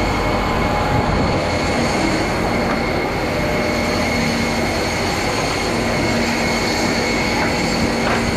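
Steady machine noise of an aircraft refueling: the Jet A fuel truck's pump running as fuel is pumped into the Airbus A320's wing, with a steady high whine above it.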